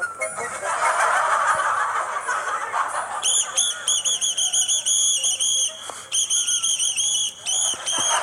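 A pea whistle blown in rapid, warbling chirps, in several runs with short breaks, from about three seconds in. Before it there is a rough, noisy hiss.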